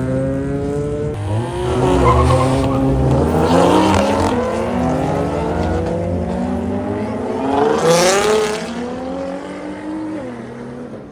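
Modified car engines revving hard and accelerating past, pitch climbing and dropping with gear changes, loudest about 2, 4 and 8 seconds in.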